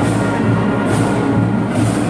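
Middle school marching band playing: brass and woodwinds holding sustained notes over the drumline, with a bright percussion accent about once a second.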